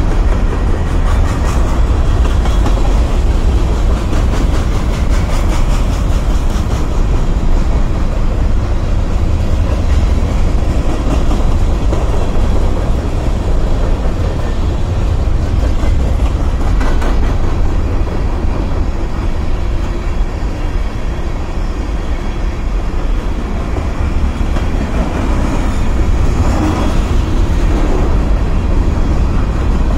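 Freight train of covered hopper cars rolling past at a grade crossing: a steady heavy rumble with the wheels clicking over rail joints in a regular rhythm.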